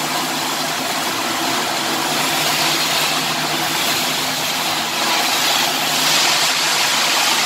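Shielded metal arc (stick) welding arc crackling and hissing steadily as an electrode burns, over a steady low machine hum.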